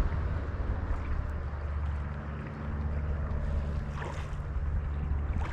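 Steady rush of flowing creek water, with wind rumbling on the microphone.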